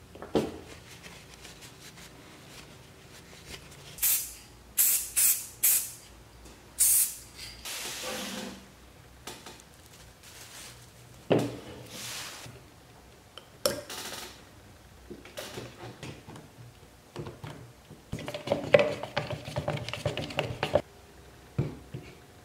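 Two-part epoxy being dispensed and mixed: a handful of short hissing squirts from pump-top resin jugs, scattered knocks, then a stick scraping and clattering around a plastic mixing cup for a few seconds near the end.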